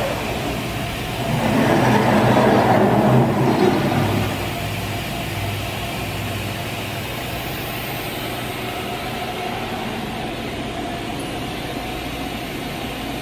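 CNC router's table and gantry axes traversing under power, louder for a few seconds near the start, then settling into a steady machine hum.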